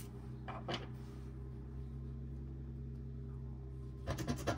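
Steady low hum with a couple of faint clicks about half a second in; near the end, quick repeated scratching starts as a scratch-off circle on a savings-challenge sheet is scratched off.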